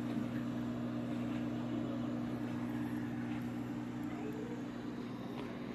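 Steady low mechanical hum with a faint even hiss: indoor room tone.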